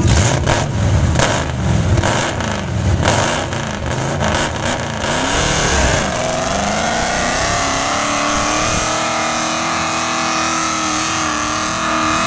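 Mud-bog pickup truck's engine revving hard and unevenly at the start of the pit, then held at high revs as the truck drives down the mud pit. From about halfway through, the engine note is steady and climbs slowly in pitch.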